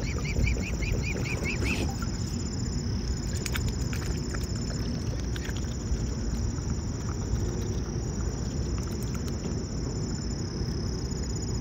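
Mute swans feeding at the water's surface: small splashes and clicks of bills dabbling in the water, over a steady low rumble. In the first two seconds there is a quick run of about eight high chirping notes.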